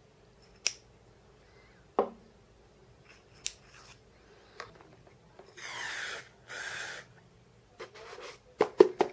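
Two short hisses from an aerosol can of silicone spray, each about half a second, roughly two-thirds of the way in. Around them, scattered sharp clicks and knocks of small metal parts being handled, the loudest a quick cluster of knocks near the end.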